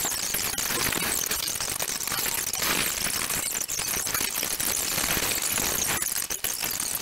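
Colored pencil shading rapidly back and forth on paper: a fast, continuous scratching, with a brief break about six seconds in.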